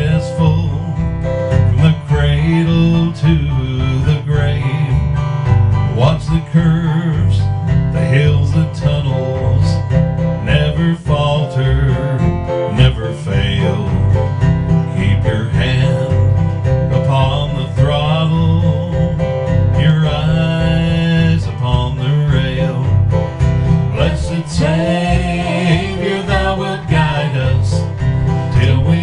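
Gospel hymn played on a strummed acoustic guitar and a Korg PS60 keyboard with a steady pulsing bass, while a man and a woman sing.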